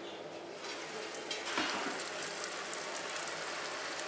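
Recirculated wort from the pump's return line pattering and trickling onto the grain bed in a brew-in-a-bag mash kettle, a steady fine crackle like light rain, louder from about half a second in.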